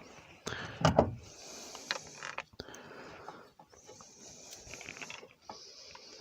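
Hand work on metal propane fittings: a loud clatter of a tool or fitting being handled about a second in, then several stretches of scraping as a fitting is worked on.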